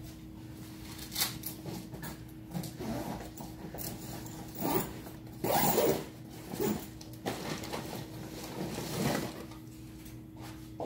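Off-camera rustling and handling noises: a string of irregular rasps and scrapes, the loudest about halfway through, over a steady low hum.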